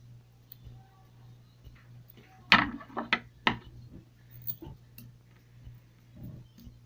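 Scissors snipping at a slime-filled balloon stress ball: three sharp clicks about half a second apart, the first the loudest, then a couple of fainter ones.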